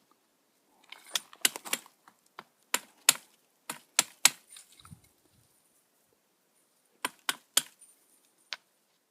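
A series of sharp, irregular clicks and taps, one run of about a dozen in the first half and a second run of four near the end.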